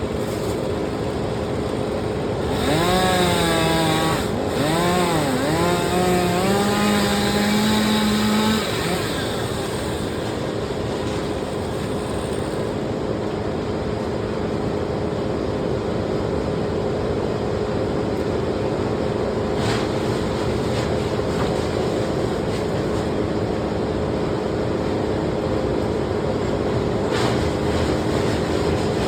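Chainsaw engine running over a steady engine drone. From about two and a half seconds in, it revs up and down for around six seconds, rising and falling in pitch, then drops back.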